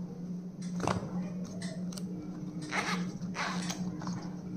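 Handling sounds from stationery being unpacked: a few short rustles and scrapes, over a steady low hum.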